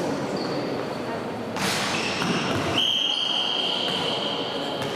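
Indoor tchoukball game in a sports hall: indistinct players' voices and court noise with ball and shoe sounds echoing in the hall, a sharp louder hit about a second and a half in, and a long high steady tone in the second half.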